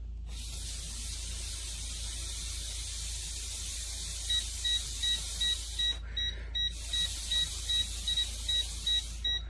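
Halogen refrigerant leak detector beeping, about three short high beeps a second, starting about four seconds in: its alarm for traces of R134a refrigerant blown out of a manifold gauge hose. A steady hiss runs underneath.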